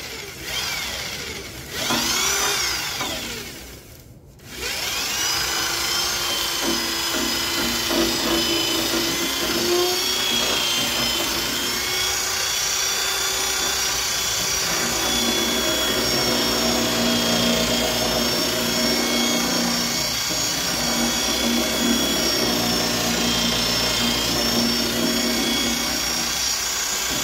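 Power drill with a foam polishing pad buffing metal polish into aluminum diamond plate. At first its motor whines up and down in a few short bursts. From about four and a half seconds in it runs steadily, its pitch shifting slightly as it is worked along the plate.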